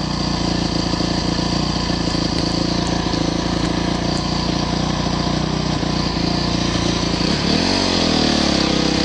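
Honda CRF four-stroke single-cylinder motocross bike engine running under way on a dirt trail, heard from a goggle-mounted camera on the rider. Its note holds steady, then about three-quarters of the way through it rises and falls again as the throttle changes.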